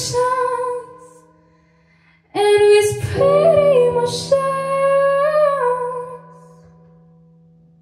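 A woman singing with electronic keyboard accompaniment: one phrase trails off about a second in, and after a short pause she sings another with keyboard chords. The voice stops near the end and the last keyboard chord is held, slowly fading.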